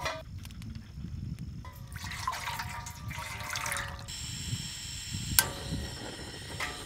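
Stainless mess tin clanking and scraping on the pot supports of a Fire-Maple canister gas stove. About four seconds in, a steady hiss of gas starts, and a sharp click comes a little over a second later as the stove is lit.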